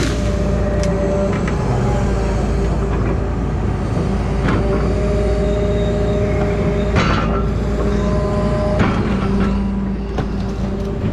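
Engine of a heavy grapple-saw machine running steadily, with held tones that shift in pitch, and a few sharp knocks, the loudest about seven seconds in.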